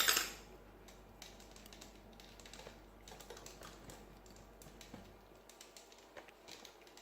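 A sharp knock at the start, then light, irregular metallic clicks and scrapes of lock picks working inside a Carbine 5-pin mortise lock's keyway.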